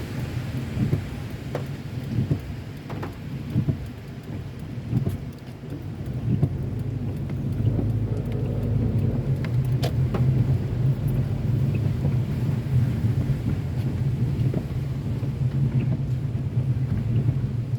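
A car driving in the rain: a steady low rumble of the car and road, with raindrops tapping now and then. The rumble grows louder about seven seconds in.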